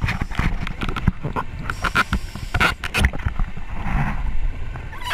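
Underwater sound from a scuba diver's camera: water rumbling and bubbling, broken by many irregular knocks and clicks of gear, with a rush of noise about four seconds in.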